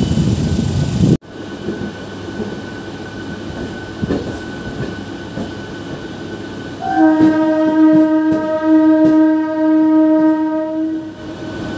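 A moving train rumbles along with occasional rail knocks. About seven seconds in, a train horn sounds one long, steady blast lasting about four seconds.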